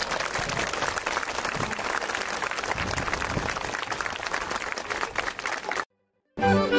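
Audience applauding, a dense steady patter of many hands clapping. The applause cuts off suddenly about six seconds in, and after a brief gap folk music with accordion starts just before the end.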